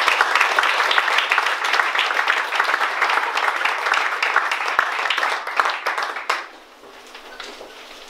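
Audience applauding, a dense patter of many hands clapping that dies away about six seconds in, leaving a few scattered claps.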